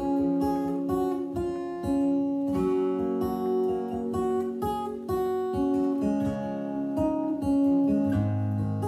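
Acoustic guitar with a capo, played solo: picked chords ringing out one after another in a slow instrumental passage.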